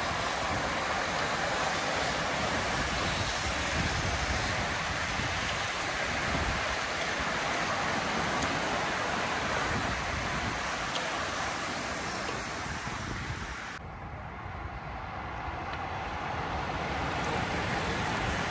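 Steady rushing noise of a large bunch of road cyclists riding past, their tyres on tarmac, mixed with wind on the microphone. About two-thirds of the way through it turns suddenly duller and quieter, then builds again.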